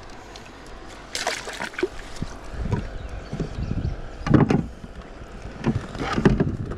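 Irregular knocks, bumps and splashy bursts of handling on a fishing kayak, the loudest a little past the middle.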